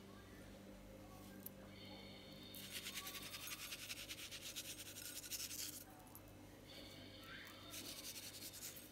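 Seasoning shaken from a spice shaker onto a plate of breadcrumbs: a fast, dry, scratchy rattle, heard in two spells. The first lasts about three seconds and starts a little over two seconds in; the second, shorter one comes near the end. A low steady hum sits underneath.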